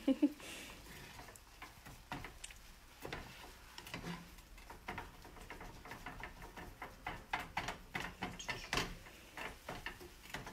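A spatula scraping and tapping in a frying pan as scrambled eggs are stirred and broken up: irregular soft clicks and scrapes, coming thicker in the second half.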